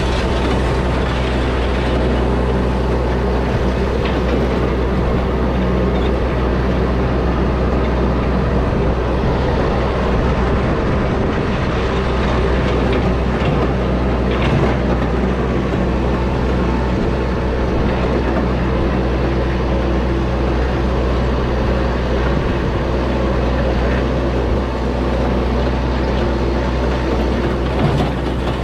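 Yanmar compact tractor's diesel engine running steadily under way, with the rattle and clatter of an antique hay rake being towed through cut hay.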